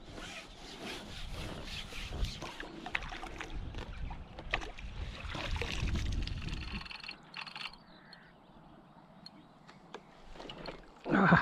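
Water splashing and sloshing at the bank, with knocks and rustles of handling, as a hooked carp is drawn toward the landing net. The commotion dies down about seven seconds in, and a short loud burst comes near the end.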